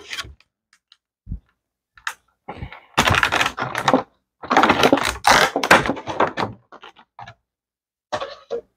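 Clear plastic packaging tray and cardboard box being handled: a soft thump about a second in, then two spells of plastic crackling and rubbing, with light clicks and knocks near the end.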